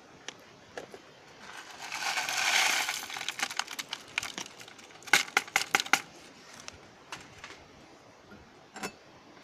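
Crushed eggshells tipped from a plastic plate into a bucket of liquid fertilizer mix: a rustling, sliding pour for about a second and a half, then a run of sharp clicks and taps as the shell pieces and the plate knock about.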